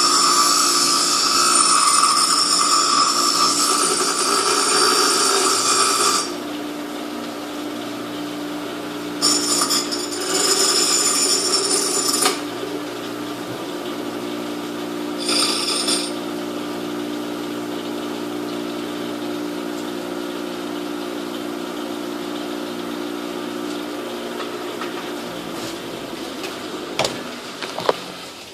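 Electric grinder grinding a small metal part: three spells of loud grinding, a long one at first, then a shorter one and a brief touch, with the motor running free in between. Near the end the motor winds down, with a couple of clicks.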